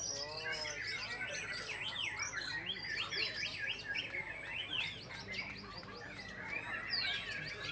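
White-rumped shama singing a fast, varied run of chirps and whistles, overlapped by the songs of other caged songbirds.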